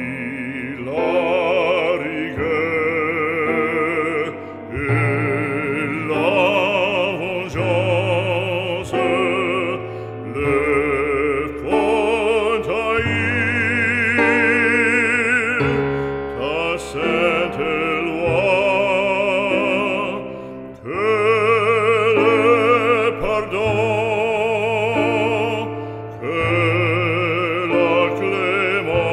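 Background music: an operatic voice singing long notes with wide vibrato over a sustained classical accompaniment.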